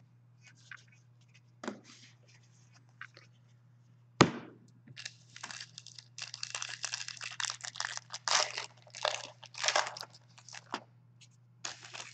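Foil trading-card pack wrappers being torn open and crinkled by hand, with a sharp crack about four seconds in and a long stretch of rustling crinkle after it.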